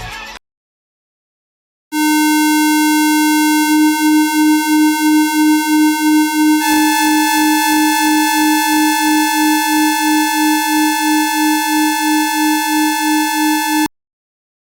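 Synthesized emergency-alert attention tone: a loud, buzzy electronic tone starts about two seconds in. It soon begins pulsing about three times a second, picks up a second, higher tone partway through, and cuts off suddenly near the end.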